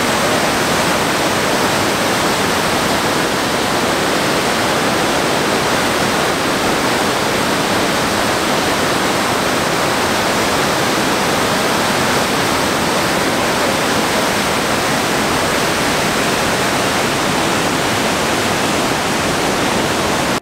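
Waterfall pouring: a loud, steady rush of falling water with no let-up.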